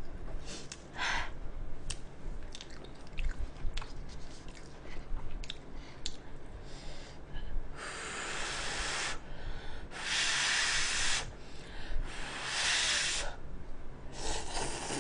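A person eating cup ramyeon: small chewing and mouth clicks, then about four long, hissing slurps of noodles in the second half.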